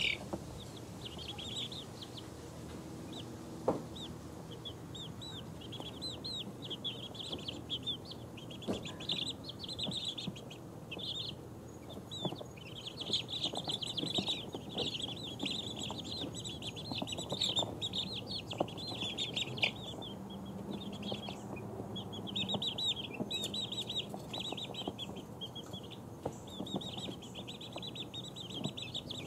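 A brood of two-week-old chicks peeping nonstop, many short high chirps overlapping in bunches, with a few soft knocks among them.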